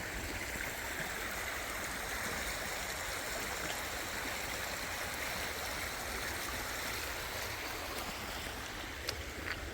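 Creek water running steadily over rocks, an even rushing sound, with a couple of faint clicks near the end.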